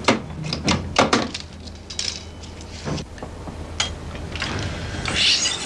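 Film splicer on an editing table clicking and clunking as film is cut and joined. There is a run of sharp clicks in the first three seconds, then a longer rustle near the end.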